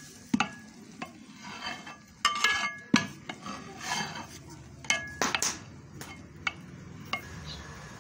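A long metal ladle stirring rice in a large aluminium cooking pot, mixing chopped mint and coriander through the rice. It scrapes and knocks irregularly against the pot, and several knocks leave the metal ringing briefly.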